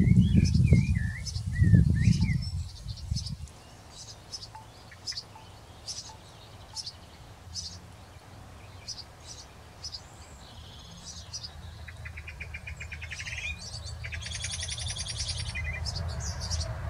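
Wild birds calling and singing: short high chirps repeating about once a second, and a fast trilling phrase about twelve seconds in. A loud low rumble fills the first three seconds, and a fainter low rumble builds toward the end.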